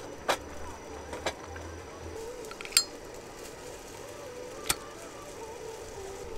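A couple of knocks of split firewood sticks being set on a small metal grill stand, then a sharp metallic clink of a Zippo lighter's lid flipping open about three seconds in, and another short click a couple of seconds later.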